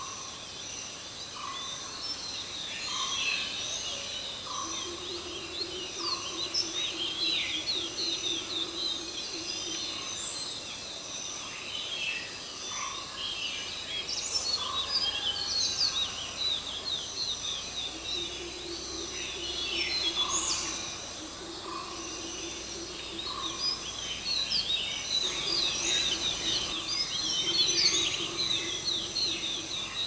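Several small birds chirping and twittering throughout, over a short lower note repeated about every second and a half. A steady low hum comes and goes in stretches of a few seconds.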